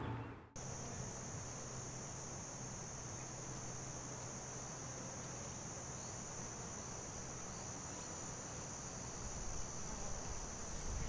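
Insects chirring in a steady, high-pitched, unbroken drone. It comes in about half a second in, as the music cuts off, and a low rumble builds near the end.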